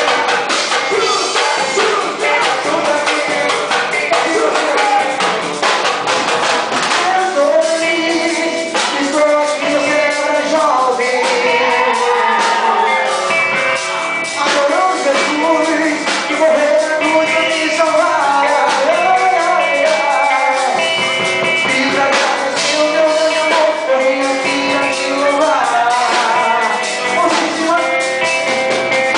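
Gospel praise band music: singing over band instruments, with drum hits keeping the beat.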